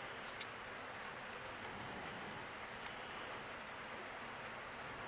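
A steady faint hiss with a couple of faint ticks.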